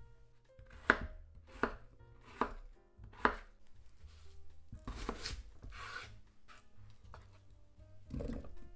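Knife cutting raw peeled potatoes on a wooden cutting board: four sharp chops about three quarters of a second apart, then a longer, rougher stretch of cutting. Near the end, a dull thud as potato pieces go into a stainless steel pot.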